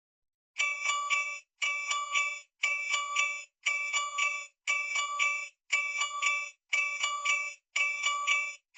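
Alarm clock ringing: a short chiming phrase of several quick high notes, repeated about once a second, starting about half a second in.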